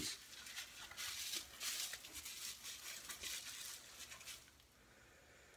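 Clear plastic packaging crinkling and rustling in the hands as a small item is unwrapped, in irregular crackles that stop about four seconds in.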